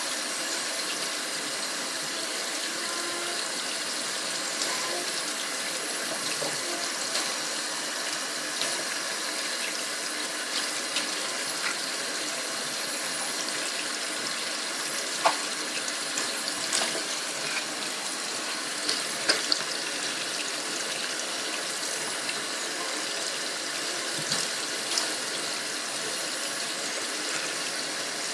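Water running and splashing steadily in a twin tub washing machine during its wash-and-rinse cycle, with a few brief sharp sounds around the middle.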